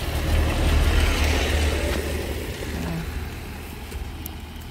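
A car driving past, its engine and tyre noise swelling to a peak about a second in and then fading away.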